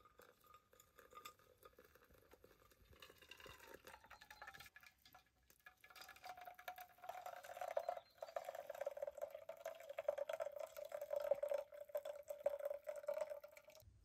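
Hot water poured in a steady stream from a camp kettle through a mesh strainer of loose-leaf tea into a steel mug. It grows louder about halfway through, with a ringing tone in the pour.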